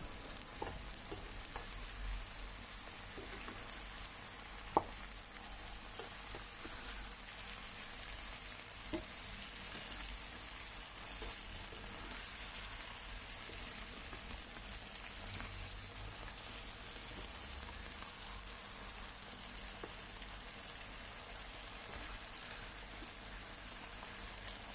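Chicken pieces frying in oil in a pan, a faint steady sizzle, with a few sharp clicks of the spatula against the pan, the loudest about five seconds in.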